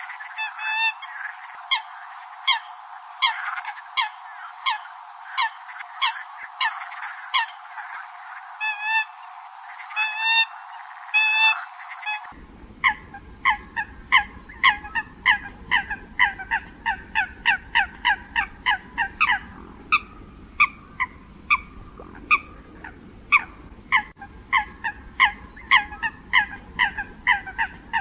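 Eurasian coot (sâm cầm) calls in a recording used as a lure for night bird trapping: a string of short, downward-sliding calls under a second apart. About twelve seconds in the recording changes abruptly to faster runs of calls, two to three a second, with short pauses.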